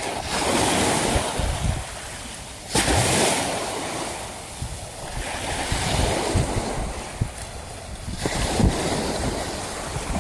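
Sea waves washing against the harbour edge, coming in surges every few seconds, one arriving suddenly, with wind buffeting the microphone.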